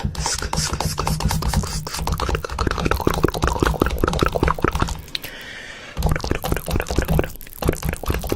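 Background music with a fast clicking beat over a steady low bass, dropping out briefly about five seconds in.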